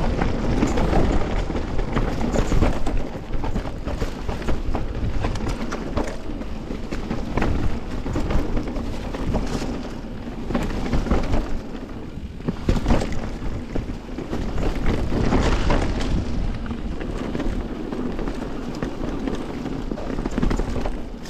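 Canyon Torque:ON electric mountain bike riding down a dirt singletrack: tyres rolling over dirt and leaves, with many short clicks and knocks as the bike rattles over bumps. A low rushing wind noise on the microphone runs under it, swelling and easing with speed.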